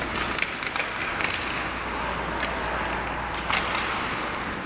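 Ice hockey rink sounds: skate blades scraping and hockey sticks clicking on the ice over a steady hiss. There is a cluster of sharp clicks in the first second and a half and another about three and a half seconds in.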